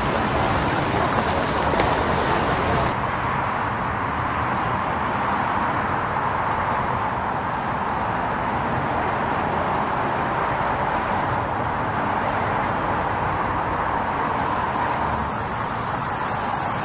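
City street ambience: a steady din of traffic and murmuring voices, with the treble dulling about three seconds in.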